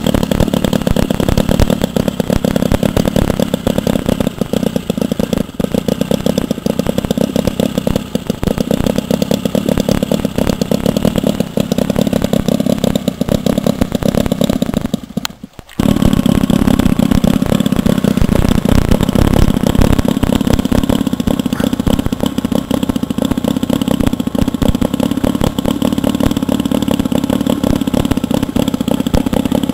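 Scale-model Ellwe two-stroke diesel engine running steadily with a fast, even knocking beat. The sound breaks off for a moment about halfway through, then the engine runs on just as steadily.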